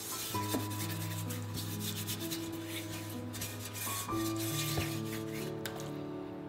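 Oiled hands rubbing olive oil over the black inside of an enamelled cast-iron skillet, a soft swishing that stops near the end, over background music with held chords.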